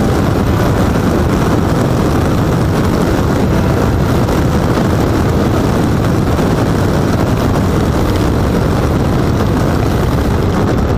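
Steady, loud rush of wind and road noise on a motorcycle-mounted camera while riding along at speed, with the engine buried in it.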